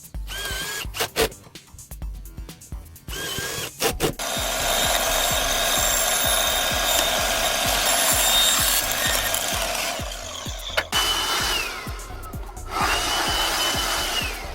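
Power drill working, likely into wood or building material: short bursts first, then a long steady run of about six seconds that winds down, then a higher whine that starts and stops.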